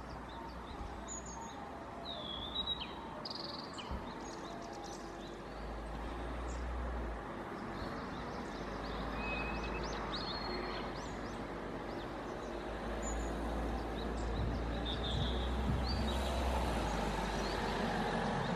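Small birds chirping, with short calls and quick pitch sweeps scattered through, over a steady low background rumble.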